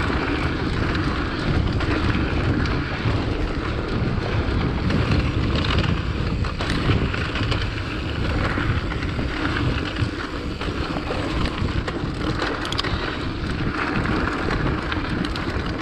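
Wind buffeting the microphone over the rolling rattle and tyre noise of a Decathlon Rockrider mountain bike on rocky singletrack, with a few sharp knocks.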